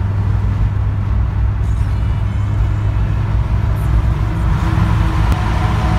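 Volkswagen Golf Mk2 GTI's inline-four engine and road noise heard inside the cabin while cruising at a steady speed, a steady low drone. About four and a half seconds in the sound grows fuller and louder as the car enters a road tunnel.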